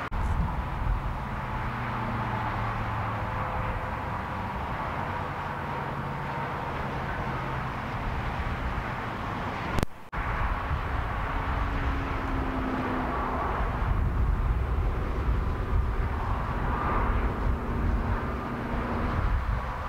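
Road traffic and vehicle engines humming steadily with a low rumble. The sound breaks off for an instant about halfway through.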